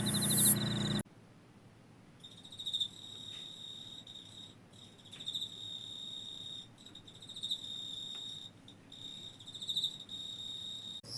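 A cricket trilling: a steady, high trill in four phrases of about two seconds each, with short breaks between them, each phrase swelling louder near its end. In the first second a louder, different insect call is heard, and it cuts off abruptly.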